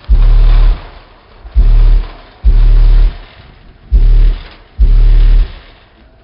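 DC Sound Lab Level 4 XL 18-inch car subwoofers on about 3,000 W RMS, playing a pattern of deep bass hits: five blasts, each about half a second long, with short gaps between. Each hit has a harsh buzz over the bass.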